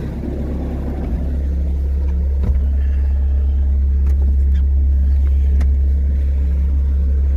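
Skid steer's diesel engine running steadily, growing louder over the first couple of seconds and then holding, with a few light clicks over it.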